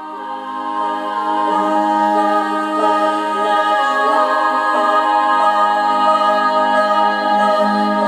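Soft background music fading in: sustained chords with a wordless humming voice.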